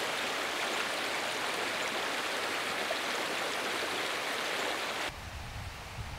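Running water of a small creek, a steady rushing that cuts off suddenly about five seconds in.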